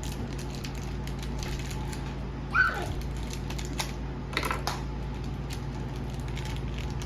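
Scattered light clicks and taps of a small hard-plastic toy and its packaging being handled, with one short, loud falling squeak about two and a half seconds in.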